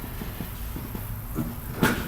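A sharp metal knock with a short ring near the end, a fainter tap just before it, from hand tools working on a cylinder head during valve reassembly, over a steady low hum.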